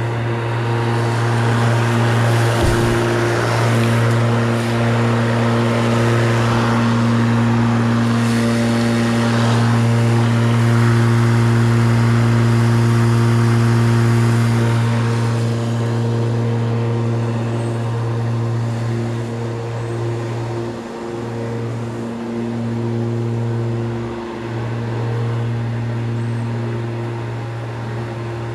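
Spear and Jackson 40V cordless rotary lawnmower running and cutting grass: a steady motor and blade hum with a swish of cut grass, growing louder as the mower passes close by about halfway through, then fading as it moves away. The hum dips briefly twice near the end.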